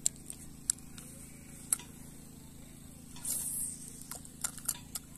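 Scattered sharp clicks, three in the first two seconds and a cluster near the end, with a short rustle in between: handling noise from the angler's hands, clothing and spinning reel.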